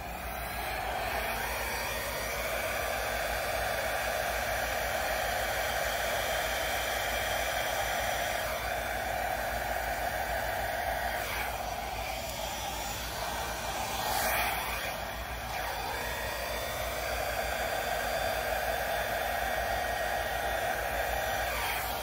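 Small travel hair dryer blowing air steadily onto wet acrylic paint to spread it in a Dutch pour, with a brief swell in loudness about two-thirds of the way through.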